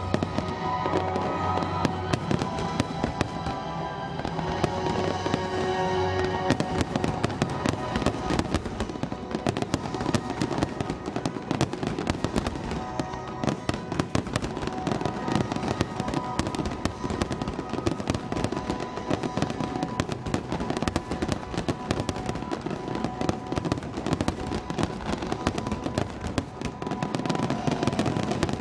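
Fireworks shells bursting in a rapid, dense barrage of bangs and crackles, with the display's soundtrack music playing underneath. The bangs come thicker from about seven seconds in.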